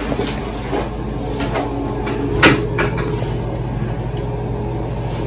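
Steady low room hum in a small restroom, with a few light knocks and one sharper knock about two and a half seconds in.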